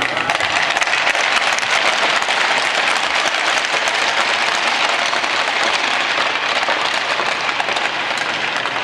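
Many hockey sticks tapping on the ice at once, a dense steady clatter of taps like applause: the hockey players' stick-tap salute.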